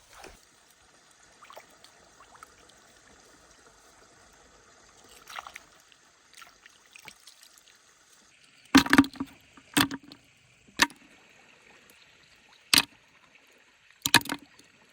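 Water splashing in a few short, sharp bursts, most of them in the second half. A faint steady high-pitched tone runs beneath.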